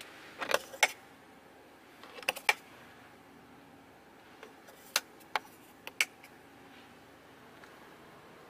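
Sharp plastic clicks of the hinged covers over the rear-console USB ports and power socket in a 2022 Genesis GV80 being flipped open and snapped shut. There is a quick cluster of clicks just after the start, three more about two seconds in, and four single clicks between five and six seconds in.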